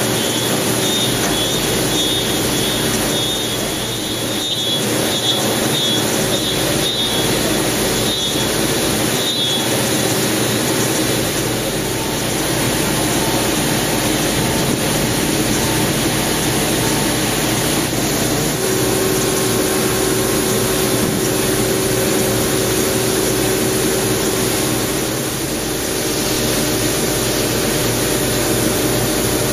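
Quick Jet AV-2516 CNC machining center running a 6 mm end mill at 8000–9000 rpm, milling a thin tapered pin from a metal block: the spindle and cutting make a loud, steady noise throughout, with the coolant mist blowing around the tool.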